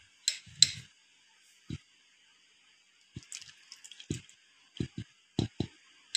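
Jaggery syrup being poured through a steel mesh strainer into a bowl: irregular drips and splashes with small knocks, a dozen or so short sounds, the loudest less than a second in.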